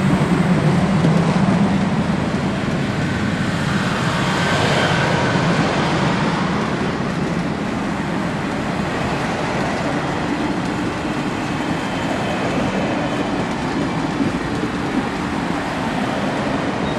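Union Pacific streamlined passenger cars rolling past on the rails, a steady noise of wheels and trucks on the track.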